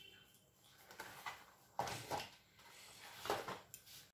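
Faint handling noises: a few soft rustles, scrapes and light knocks, with the clearest ones about halfway through and again near the end.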